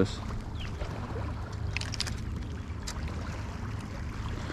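Steady low rumble under wind and water noise, with a few light clicks near the middle.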